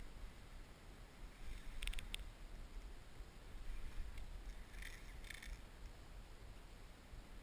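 Outdoor shoreline ambience of a wading surfcaster: a steady low rumble of wind on the microphone, with short clicky, splashy sounds about two seconds in and again around five seconds.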